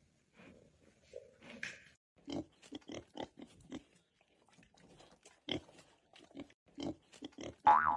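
A series of short animal sounds, several a second, ending in a louder pitched cry that rises and falls in pitch near the end.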